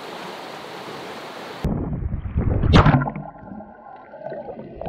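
Steady rush of a fast river. About a second and a half in it cuts to a muffled underwater sound: low rumbling and gurgling of moving water, with one loud thump a little later and a faint steady whine after it.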